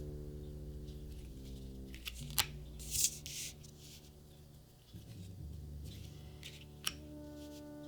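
Trading card packaging being handled: a few sharp clicks and a short tearing rustle about three seconds in, over quiet orchestral background music.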